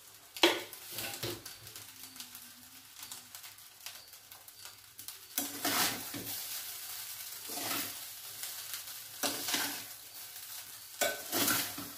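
Metal spatula scraping and turning rice in a stainless steel kadai, in separate strokes every second or two. The loudest is a sharp clink of metal on metal about half a second in.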